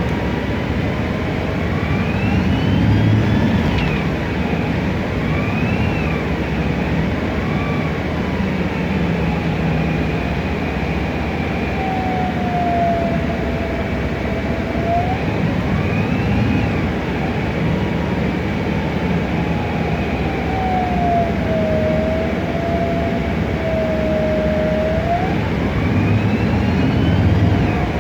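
Inside a 2007 MAN Lion's Classic CNG city bus under way: the Voith DIWA 864.3 automatic transmission whines, its pitch rising and falling repeatedly as the bus speeds up and slows, over the steady running of the MAN E2876 engine and rushing air from open ventilation.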